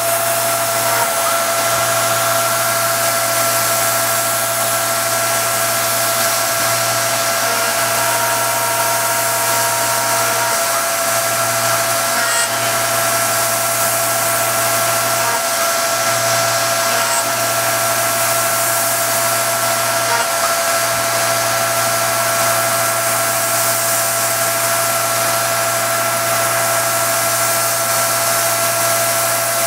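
Self-converted RF45 CNC mill spindle running at high speed while a 1/8-inch cutter mills 3D lightening panels into a 1911 pistol slide. It makes a steady whine over a constant hiss, with no change through the cut.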